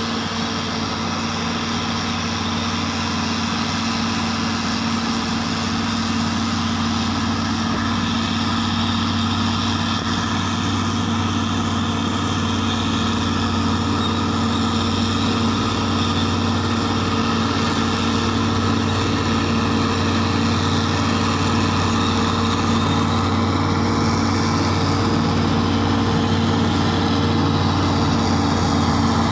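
Bulldozer's heavy diesel engine running at a steady pitch, growing slowly louder as it draws nearer.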